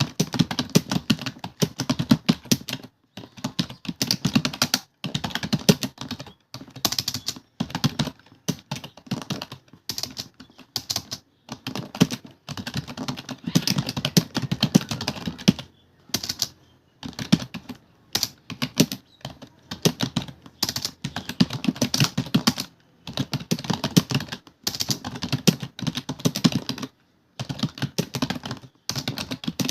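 Fast typing on a computer keyboard: rapid runs of key clicks broken by short pauses every second or two.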